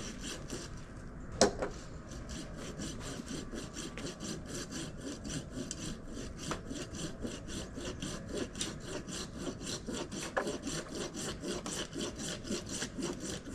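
Hand saw cutting through a limb of a dead ash tree in steady back-and-forth strokes, about three to four a second. A sharp knock sounds about a second and a half in.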